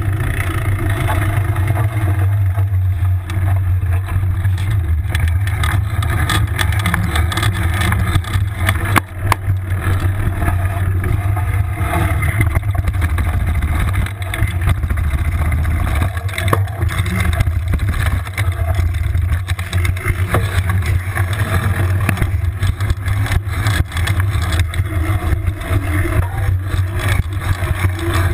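A mountain bike being ridden, heard through a camera mounted on its handlebars: a steady low rumble from riding runs throughout, with a few sharp knocks and rattles from the bike.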